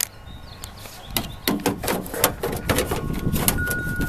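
Plastic leaf-rake insert of a Fiskars DiverterPro downspout rain diverter being worked back down into its plastic housing: a run of irregular plastic clicks and knocks, with wind rumbling on the microphone.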